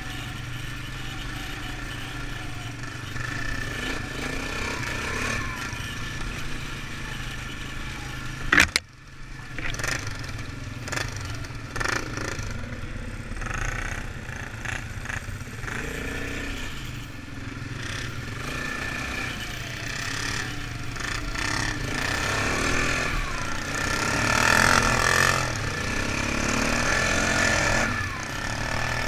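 ATV (quad bike) engine running while riding a rough dirt trail, getting louder about three quarters of the way through. A single sharp knock about eight and a half seconds in is the loudest moment.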